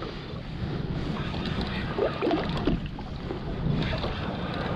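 Wind noise on the microphone over sea water lapping against a small boat's hull.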